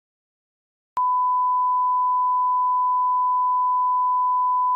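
A 1 kHz test tone of the kind that runs with SMPTE colour bars, one pure, unbroken beep that starts abruptly about a second in after silence and holds at a steady level.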